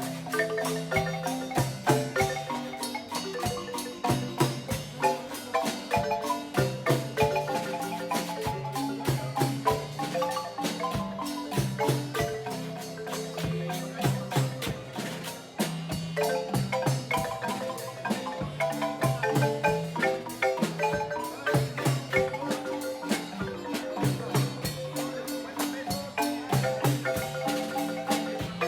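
Marimba playing a fast tune, with rapid mallet strokes across many notes, bass and treble parts together. There is a brief lull about fifteen seconds in.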